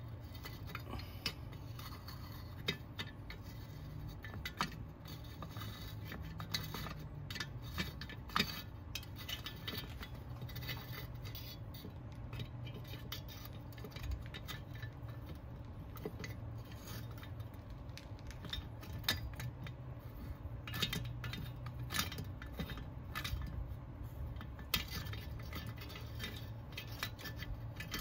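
Scattered light metal clicks and clinks of a hand tool and small screws being handled on a workbench while screws are taken out of a chainsaw, over a low steady hum.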